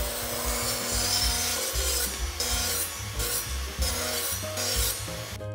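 Table saw blade ripping a hardwood board fed through with a push shoe: hissy cutting noise that swells in several surges. Background music underneath.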